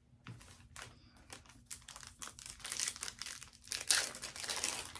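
Foil trading-card pack wrapper crinkling and tearing as it is handled and opened. The crackling grows denser and louder over the second half.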